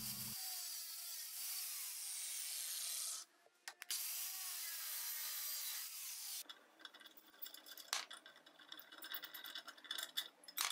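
Angle grinder's cut-off wheel cutting through the rusty steel of an old reel lawn mower: a steady hissing grind in two stretches, broken by a short pause about three seconds in. After about six and a half seconds it gives way to quieter clinks and taps of cut metal pieces being handled.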